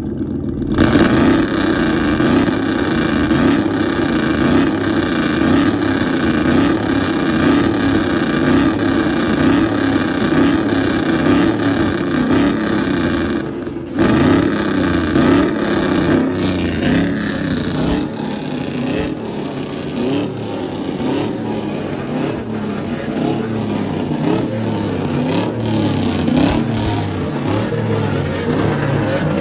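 Pickup truck engine revved over and over through its exhaust, in a regular pulsing pattern. About two-thirds of the way through it drops to a lower, weaker running.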